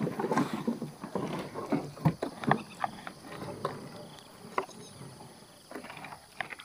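A gill net being pulled up by hand from a small boat: irregular knocks, clicks, rustles and splashes of net and water, busier in the first few seconds.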